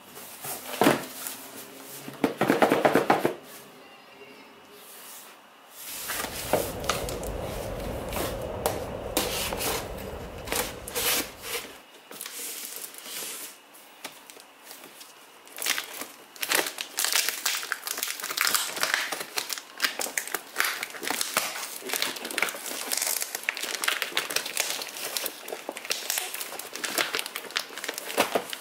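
A padded paper shipping envelope being handled and torn open: paper and packaging crinkling and rustling in irregular bursts, with many small clicks and taps.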